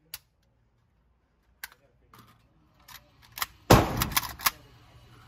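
A few light metallic clicks, then about three-quarters of the way in a loud AK-74 rifle shot in 5.45 mm with a short ringing echo, followed closely by a few more sharp cracks.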